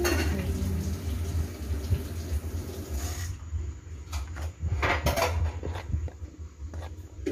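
A hand stirring through a basin of raw glutinous rice balls, giving a cluster of short soft knocks and rustles about four to five seconds in. A steady low hum runs underneath, with a steady hiss over the first three seconds.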